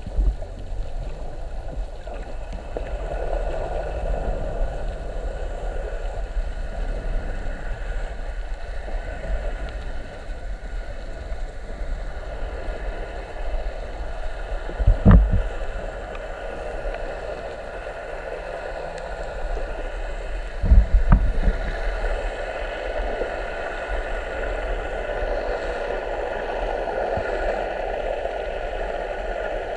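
Muffled underwater sound picked up through a camera's waterproof housing: a steady dull hum and water noise, with a faint whine like a distant boat motor carried through the water. There are dull thumps about halfway through and again about two-thirds of the way in.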